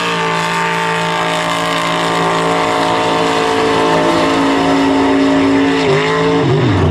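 Mud truck engine held at a steady high pitch at full throttle for about six seconds as the truck runs through the mud pit, then the revs dip and swing up and down near the end.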